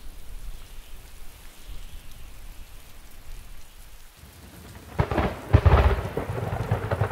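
Rain falling, with a loud clap of thunder about five seconds in that strikes twice in quick succession and rumbles for about a second before the rain carries on.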